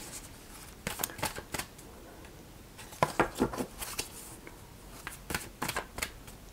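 A deck of Goddess Oracle cards being shuffled by hand, the cards flicking and slapping against each other in three short spells: about a second in, around three to four seconds in, and again near the end.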